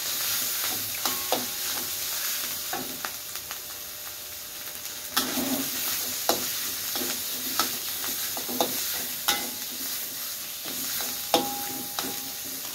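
Food sautéing in hot oil in a wok, sizzling steadily, while a metal ladle stirs it, clinking and scraping against the pan now and then.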